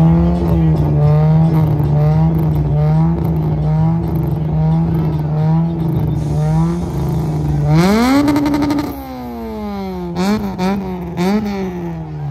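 Car engine revved at a meet: held at a steady high rev for several seconds, then pushed higher about eight seconds in, held briefly, and let fall, followed by three short throttle blips.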